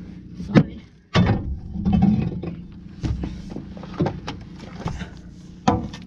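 Sharp knocks and thuds of a long bar being jabbed and pried into hard-packed gumbo mud plugging a ditcher's auger housing, the bar striking mud and metal about half a dozen times at uneven intervals, with a steady low hum underneath.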